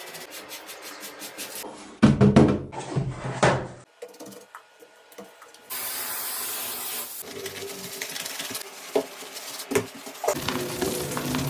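A quick string of short, cut-together restoration work sounds on a toy truck: hand tools scraping and rubbing, with a few sharp knocks. The loudest stretch is a burst of scraping about two seconds in.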